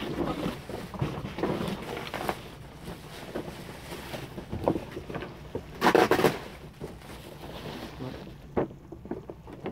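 Plastic bags and bubble wrap rustling and crinkling as boxed toy robots are unwrapped, with scattered small clicks and one louder burst about six seconds in.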